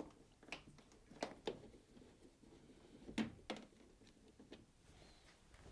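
A Phillips screwdriver undoing the two screws that hold a Samsung ecobubble washing machine's control panel: a few faint, scattered clicks of the tool on the screws and plastic fascia.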